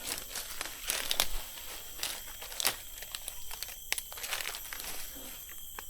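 Irregular crunching and crackling of dry leaf litter and fallen oil palm fronds being trampled and pushed through while searching the ground.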